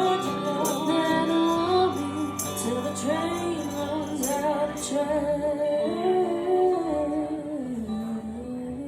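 A band playing a country-rock song, with a voice singing long, wavering notes over the instruments; the music gets gradually quieter toward the end.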